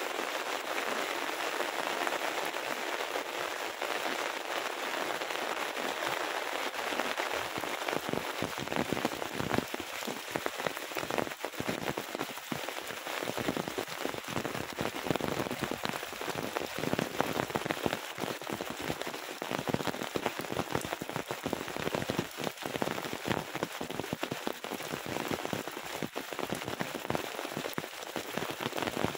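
Heavy rain falling steadily, a dense hiss of drops; from about seven seconds in, louder separate drop hits come thick and fast among it.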